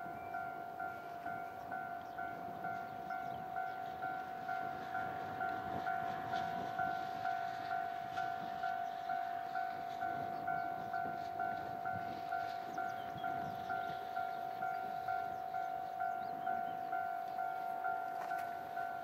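Japanese level-crossing electronic warning bell ringing steadily at about two strikes a second, the crossing's signal that a train is approaching.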